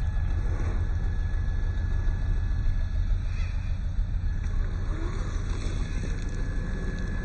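Radio-controlled scale crawler's electric motor whining faintly and steadily, dropping out for a couple of seconds midway, over a steady low rumble.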